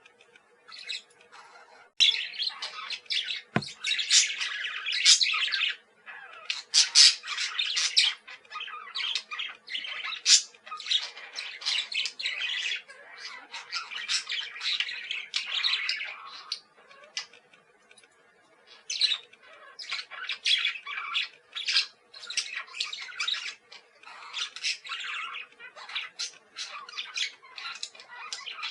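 Parakeets chattering and squawking: a dense run of quick, overlapping high chirps and short squawks, almost without pause, over a faint steady hum.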